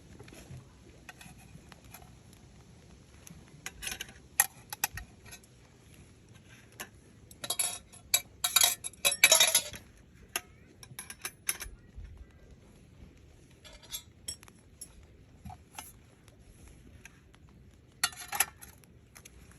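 Cookware and utensils clinking and rattling as they are handled, in scattered knocks with a dense run about eight to ten seconds in and another short burst near the end.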